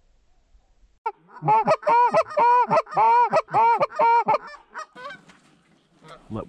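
Goose honking: a quick, even run of about ten loud honks, roughly three a second, starting about a second in. They trail off into fainter calling after about four seconds.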